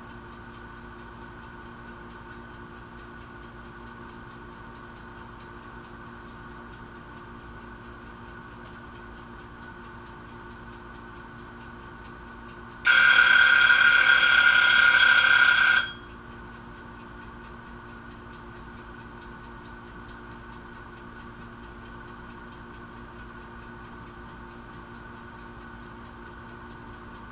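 A loud ringing tone starts suddenly about halfway through, holds steady for about three seconds, then stops. Under it runs a steady background hum.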